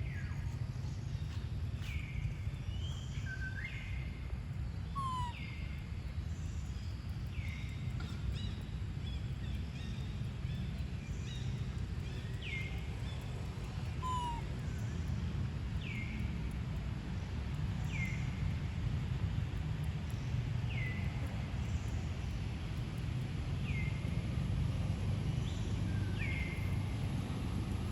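A short, high call that slides down in pitch, repeated about every two seconds, over a steady low rumble of outdoor noise.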